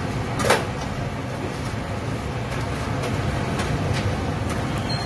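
Steady low rumble of street background noise, with one sharp clack about half a second in and a few faint ticks after it.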